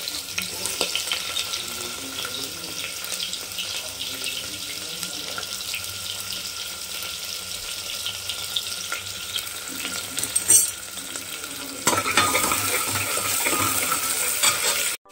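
Chopped onions sizzling and crackling in hot oil in a pan as they are stirred. The sizzle turns louder for the last few seconds.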